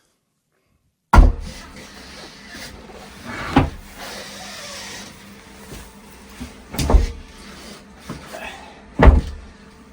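About four loud knocks or thuds a few seconds apart, over a steady background hiss.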